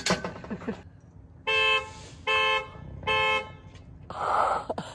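Car alarm set off by accident: the car's horn honks three times in a steady rhythm, short blasts of the same pitch about three-quarters of a second apart.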